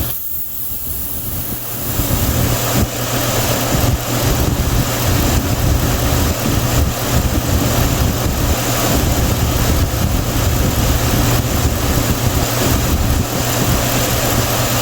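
Chevrolet Silverado 5.3-litre V8 engine running steadily while a can of intake cleaner is fed through the throttle body during an induction service. It is a little quieter for about the first two seconds, then holds level.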